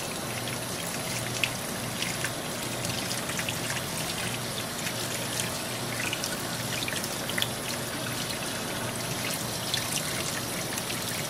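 Kitchen faucet running steadily into a stainless steel sink as a puppy is rinsed under the stream, with small splashes and drips scattered through it.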